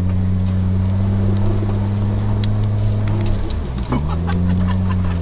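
Suzuki Jimny 4x4's engine pulling steadily at held revs, dropping briefly about three and a half seconds in, as at a gear change or throttle lift, then climbing back up. Scattered light knocks and rattles sound over it.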